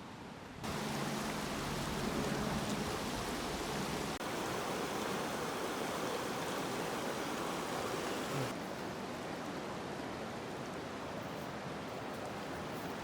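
Rushing river water: a steady, even noise of fast-flowing water. It jumps louder about half a second in and changes in tone twice more.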